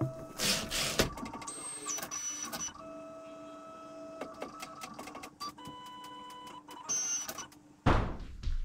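Prusa XL 3D printer's stepper motors whining at steady pitches that jump and change every second or so as the toolhead moves during the tool offset calibration, with many small clicks. A louder rushing noise sets in near the end.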